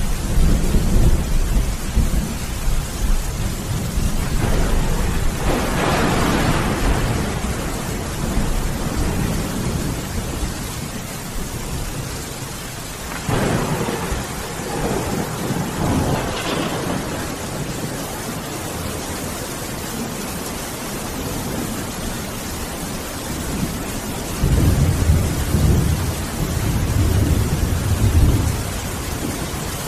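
Thunderstorm: steady rain with repeated thunder. Low rumbles come at the start, a crackling peal about six seconds in, another sharper crack about thirteen seconds in, and low rolling rumbles again near the end.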